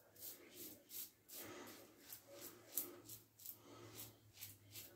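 Gillette New long comb safety razor scraping through stubble on the neck in short, faint strokes, about three a second.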